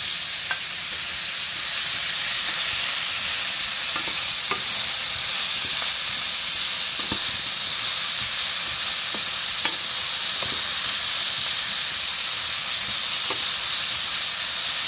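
Zucchini sticks sizzling in hot oil in a nonstick frying pan over high heat, a steady hiss. A wooden spatula stirring them gives a few light taps.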